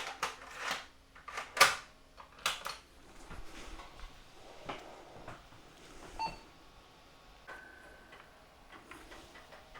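Sharp clicks and knocks from handling a Pentium-era PC and its floppy disk, several in quick succession in the first three seconds, then a single short steady beep about seven and a half seconds in, typical of the PC starting up.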